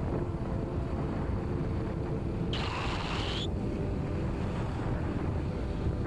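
Steady rumble of a vehicle on the move, with wind on the microphone. About two and a half seconds in, a high tone sounds over it for about a second.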